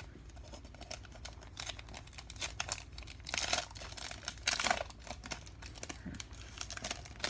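Foil wrapper of a Panini Prizm basketball card pack crinkling and tearing as it is opened by hand. It makes a run of small crackles, with two louder rustles around the middle.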